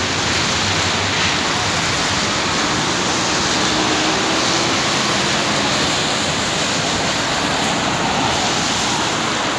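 Steady hiss of traffic on a rain-soaked street: tyres swishing over wet asphalt with the rain, and a faint engine hum from a coach bus passing a few seconds in.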